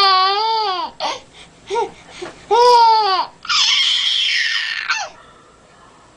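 Baby squealing with laughter: several high-pitched squeals that rise and fall in pitch, then a longer breathy squeal that stops about five seconds in.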